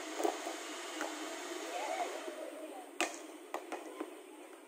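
A volleyball being struck by players' hands and forearms in passing: a few sharp slaps, the loudest about three seconds in, followed by two lighter ones.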